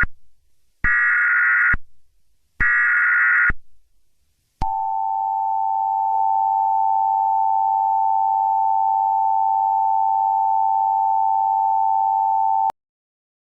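Emergency Alert System tones: two harsh, buzzy bursts of the digital SAME header, each about a second long, then after a short gap the two-tone EAS attention signal held steady for about eight seconds and cut off abruptly. The attention signal announces that an emergency alert is about to be read.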